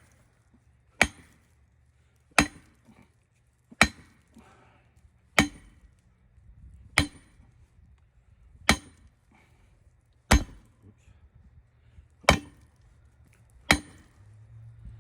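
Heavy hammer striking metal on a bus's seized suspension part: nine hard, evenly spaced blows about a second and a half apart, each with a short metallic ring, trying to drive the stuck part loose.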